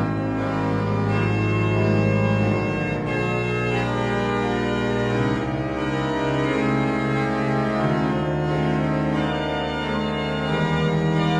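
Music: sustained organ chords that shift from one to the next every second or so.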